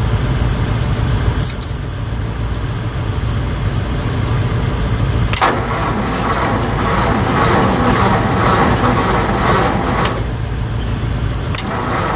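A 1956 Ford tractor's 6-volt starter cranks the cold four-cylinder engine, without starting fluid, in a stubborn cold-start attempt. The cranking comes on sharply about five seconds in, runs to about ten seconds, and starts again near the end, over a steady low rumble.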